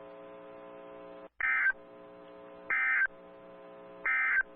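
Three short bursts of NOAA Weather Radio SAME digital data tones, about a second and a half apart, over a steady electrical hum: the EAS end-of-message code that closes the warning broadcast.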